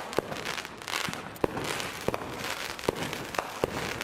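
Fireworks going off all around: an irregular run of sharp pops and bangs, about ten in four seconds, with crackling between them.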